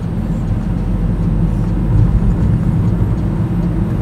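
Steady low rumble of a car's engine and tyres on the road, heard from inside the cabin while driving slowly.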